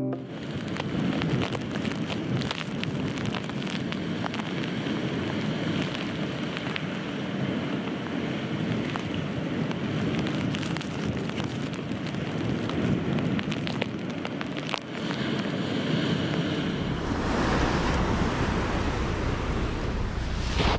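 Surf and wind at a rocky shoreline, a steady rushing noise with many small scattered ticks. About seventeen seconds in, wind starts buffeting the microphone with a low rumble.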